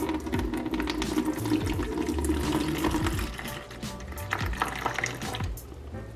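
Water pouring in a thin stream from a plastic fish-shipping bag and splashing into a plastic bucket, heaviest for the first three seconds or so, over background music.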